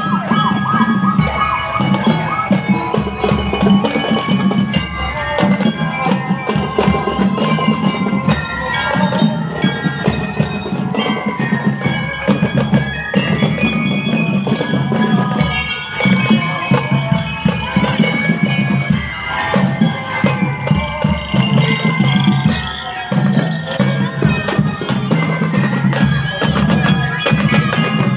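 Marching procession band playing: ringing bell-like notes carry the melody over steady bass and snare drum beats.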